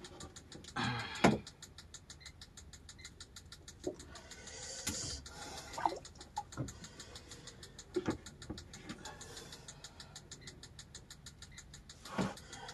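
Quiet handling sounds, scattered small knocks and clicks, as a two-hook fishing rig is worked by hand in a wooden boat, over a faint steady ticking of about five ticks a second.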